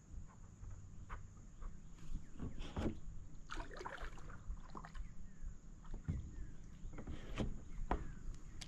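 Irregular knocks, bumps and light clatter from handling gear aboard a fishing kayak, with a denser run of knocks about three seconds in.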